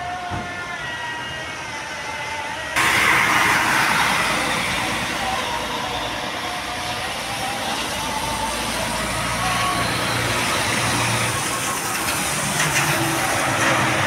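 Intercity coaches running and moving around a rain-wet bus terminal: a steady wash of engine noise and wet-road hiss that starts abruptly about three seconds in, swelling as a coach passes close near the end. Before that, a quieter stretch with a wavering tone.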